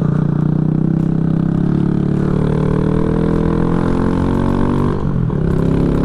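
Kawasaki Z125 Pro's 125 cc single-cylinder engine under way, its pitch rising steadily as the bike accelerates. About five seconds in the note briefly drops and breaks, as on an upshift, then carries on.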